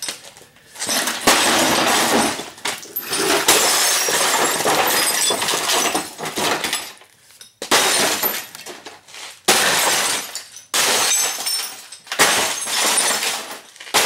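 Glass of a small RCA television being smashed, in about six spells of breaking and crunching with tinkling shards, separated by short pauses.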